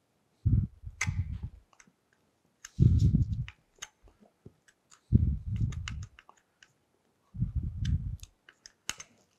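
Gloved hands rubbing and working along the edge of a freshly epoxied Turcite wear strip on a cast-iron machine way: four dull rubbing sounds of about a second each, with many small sharp clicks between them.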